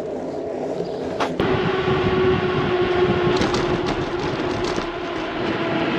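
Steady rolling noise of a loaded touring bicycle on a paved path, with wind on the microphone and a steady droning hum running through it.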